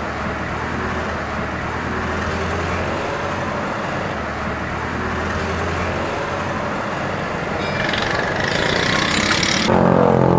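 Steady roadside traffic noise, with a low engine hum that holds steady for the first several seconds. A louder sound with a wavering pitch comes in just before the end.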